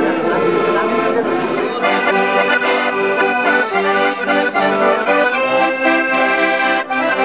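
Accordions playing a traditional folk tune in steady held notes and chords, coming in about two seconds in after a moment of voices chattering.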